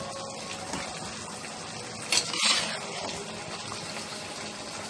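Minced-meat and yogurt gravy simmering and sizzling steadily in a pot on a high flame as chana dal is tipped into it, with a brief louder scrape about two seconds in.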